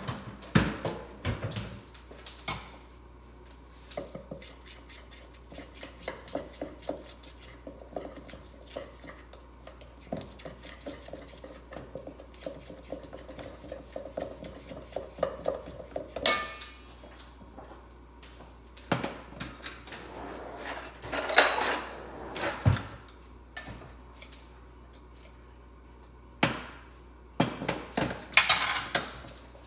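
A utensil clinking and scraping against a stainless steel mixing bowl as cookie dough is mixed: a quick run of small clicks through the first half, then scattered louder clanks and knocks, several close together near the end.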